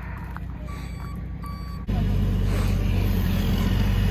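Truck engine idling with a steady low hum, which turns abruptly louder about two seconds in.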